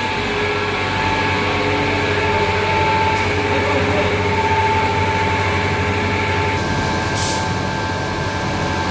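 Continuous namkeen fryer-conveyor machine running: its electric geared motors hum steadily with a held whine. A brief hiss comes about seven seconds in.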